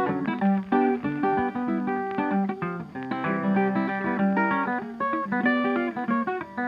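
Background music: acoustic guitar picking a quick melody.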